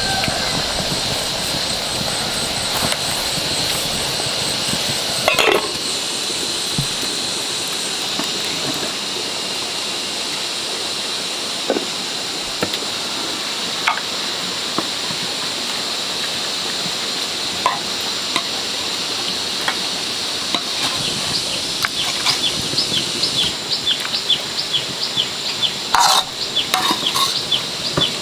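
Home cooking over a wood fire: a steady hiss of boiling water and cooking under a constant high-pitched drone, with scattered clinks and taps of a spoon and bowls, and a run of quick ticks near the end.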